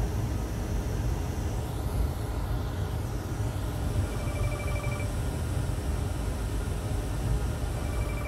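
Steady low rumble, with a telephone ringing faintly twice: a short trilling ring near the middle and a second starting near the end.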